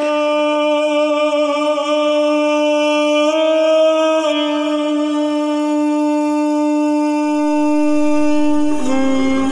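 Background music: one long held note that steps up slightly about three seconds in, settles back a second later, and drops lower near the end.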